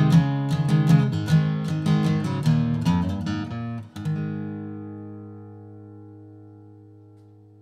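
Background music: the instrumental close of a song, guitar strumming, ending about four seconds in on a final chord that rings and fades away.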